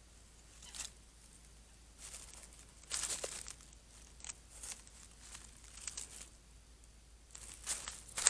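A beaver rustling and crunching through vegetation right beside the microphone in short, irregular bursts, with louder scrapes about three seconds in and near the end as it comes up against the camera.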